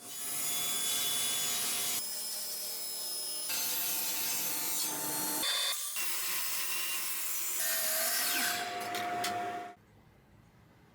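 Woodworking power tools machining wood in a run of short edited clips: a steady motor whine over the noise of the cut. It drops to a faint background about a second before the end.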